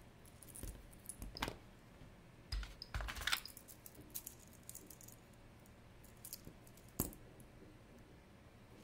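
Vintage stainless steel link watch bracelets being handled: light metallic clinks and small rattles of the links. There is a cluster of clinks around three seconds in and one sharper click about seven seconds in.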